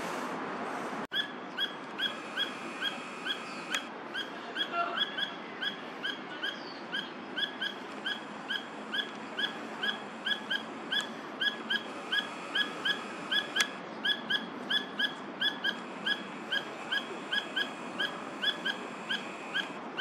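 Crested goshawk calling: a long, even series of short, shrill, slightly rising notes, about two to three a second, starting about a second in.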